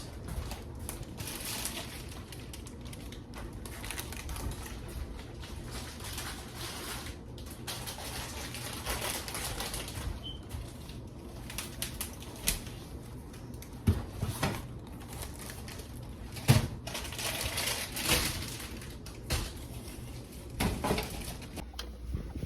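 Kitchen handling noises: irregular clicks, knocks and rustles as groceries and plastic containers are moved about, with a few louder knocks in the second half, over a low steady hum.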